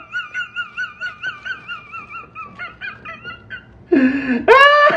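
A man's high, wavering falsetto laughter, then a loud honking laugh that rises sharply in pitch about four seconds in.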